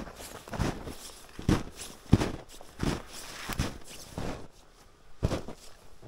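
Footsteps in snow at a steady walking pace, about one step every 0.7 s, with a brief pause about two-thirds of the way through.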